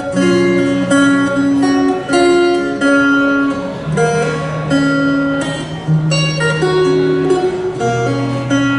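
Acoustic guitar playing the instrumental intro of a song, a run of plucked chords and single notes with each attack ringing on, before any singing comes in.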